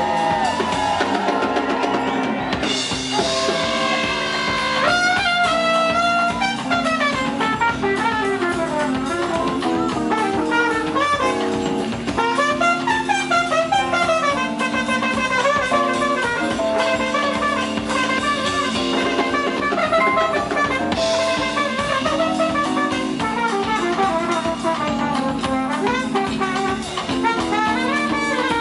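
Live traditional New Orleans jazz band playing, a trumpet leading the melody over electric bass, drum kit and keyboard.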